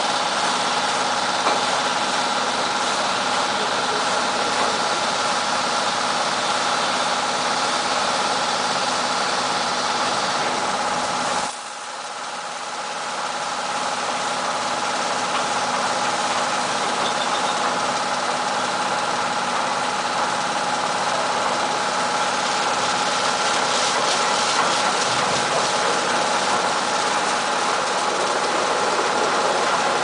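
TEPO-AUTO TP901 tunnel car wash machine running: a steady mechanical hum with a constant whine over a hiss of water spray. The sound drops abruptly about eleven seconds in and builds back up over the next few seconds.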